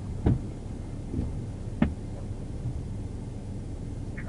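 Low steady hum in the back of a police car, with two dull knocks about a second and a half apart.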